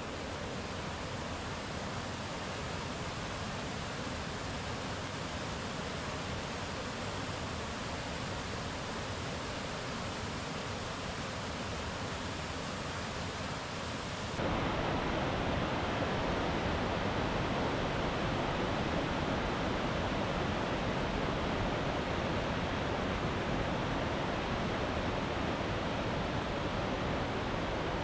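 Waterfall rushing steadily. About halfway through it suddenly becomes louder and fuller, with less hiss at the top.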